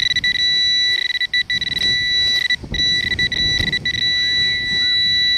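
XP Deus metal detector sounding a continuous high-pitched tone over a strong buried target, broken by a few brief drop-outs. A low rustle or scrape sits under it around the middle.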